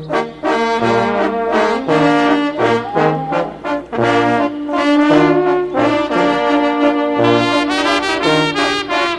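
Instrumental music, with brass carrying the melody over a steady bass line that alternates between two low notes on the beat.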